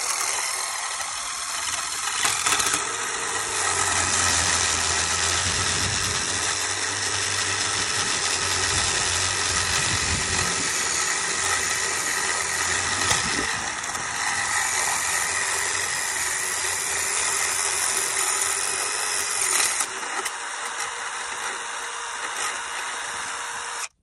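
Cordless drill running steadily with a step drill bit cutting into the oiled mirror mount, then stopping abruptly.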